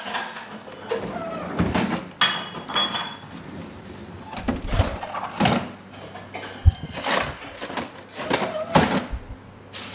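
Refrigerator's bottom freezer drawer pulled open on its slides, with a series of knocks and thumps. The loudest is a sharp thunk about two-thirds of the way through.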